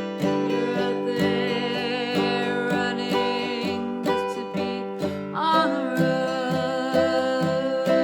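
Acoustic guitar strummed in a steady rhythm, with a sustained, wavering wordless melody line held over it that breaks off briefly in the middle.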